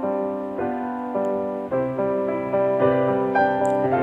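Background music: a piano playing slow, soft chords, a new chord struck every half second or so and left to fade.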